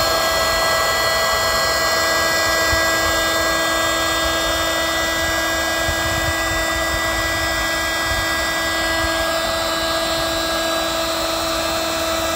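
Electric powered air inflator running steadily, blowing air into one chamber of an inflatable kayak, with an even, high motor whine.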